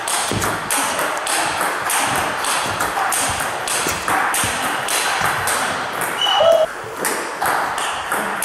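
Table tennis rally: a plastic ball clicking rapidly back and forth off rubber-faced bats and the table, in quick succession. A brief squeak comes about six seconds in.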